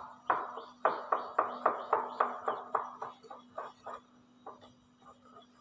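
Wire balloon whisk beating yogurt into dry semolina in a glass bowl: quick rhythmic strokes against the glass, about three to four a second. The strokes fade to a few faint ones about four seconds in.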